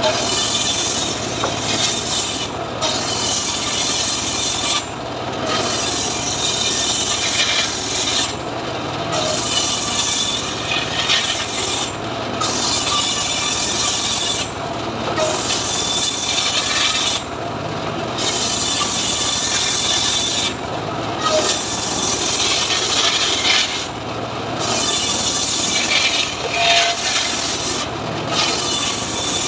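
Homemade circular saw bench ripping freshly felled leucaena (lamtoro) wood into planks. The blade cuts steadily, with brief lulls every few seconds as one pass ends and the next board goes in.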